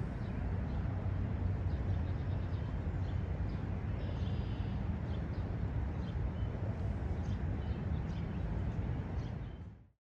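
Outdoor park ambience: a steady low rumble with faint bird chirps and a short trill over it, fading out to silence near the end.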